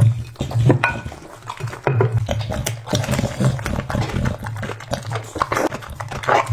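An American bully dog eating shredded raw red cabbage off a ceramic plate: many sharp, irregular crunches as it chews, over low grunting breaths that come and go.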